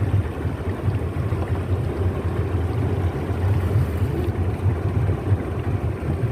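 Boat engine idling in neutral with a steady low rumble.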